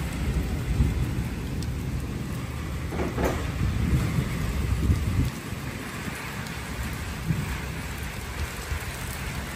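Steady heavy rain splashing on a wet concrete yard, with a low rumble of thunder over the first few seconds that dies away about five seconds in.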